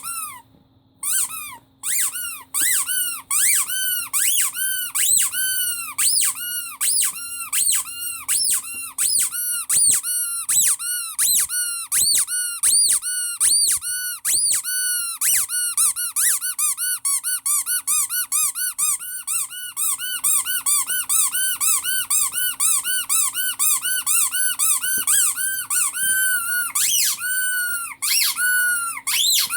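Rubber squeaky toy squeezed over and over: short squeaks that each rise and fall in pitch, a few spaced out at first, then coming fast, about two or three a second.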